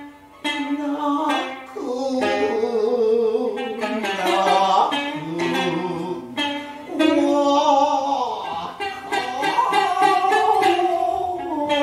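Gidayū-bushi chant: a bunraku chanter sings long, drawn-out lines that waver in pitch. A futozao (thick-necked) shamisen accompanies him with sharp plucks.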